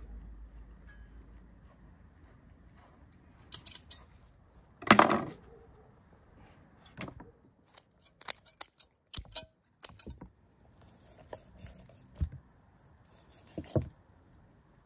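Poultry shears snipping and crunching through a raw whole chicken: a run of sharp clicks and short cracks, with a louder thud about five seconds in.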